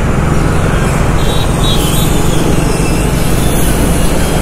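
Motorcycle running steadily while riding through street traffic, its engine note under a continuous rush of wind and road noise on the microphone.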